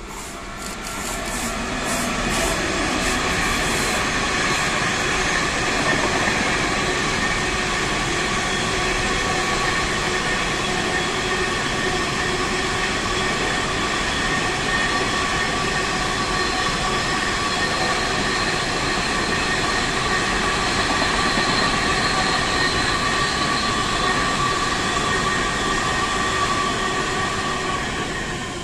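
A freight train of empty stanchion log wagons rolls past behind a locomotive. Dense rumble of wheels on rail, with steady high whining tones over it, builds over the first couple of seconds and fades just before the end as the last wagons go by.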